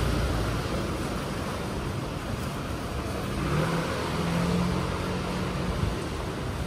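Street traffic: a motor vehicle engine running close by, its pitch rising a little about three and a half seconds in, over steady street noise.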